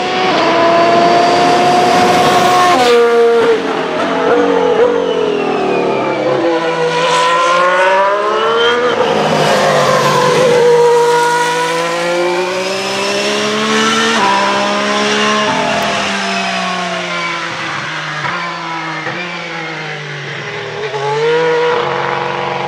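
Ferrari SF71H Formula 1 car's 1.6-litre turbocharged hybrid V6 (Ferrari 062 EVO) running on track. The engine note climbs and drops repeatedly through quick gear changes, with a sharp fall in pitch about three seconds in.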